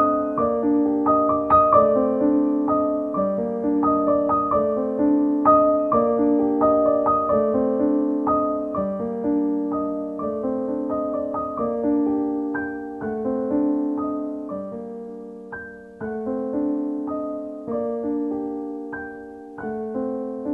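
Solo piano background music: a slow, gentle melody over held chords, with notes growing sparser and softer toward the end.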